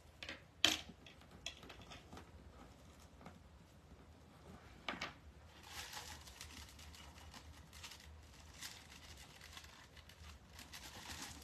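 Soft rustling and crinkling of deco mesh being handled and fastened onto a wreath frame. There is a sharp click a little under a second in and another about five seconds in.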